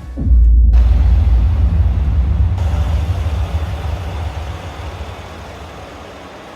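Mercedes-AMG E63's V8 engine starting, with a loud flare about a quarter second in, then settling and quietening over the next few seconds.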